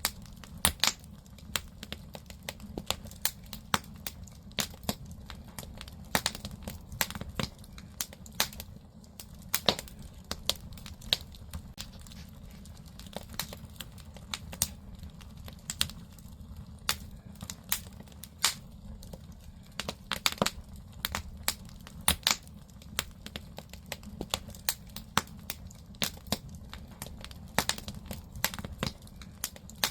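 Firewood burning in a traditional Korean agungi firebox, with irregular sharp crackles and pops over a low steady rumble of the fire.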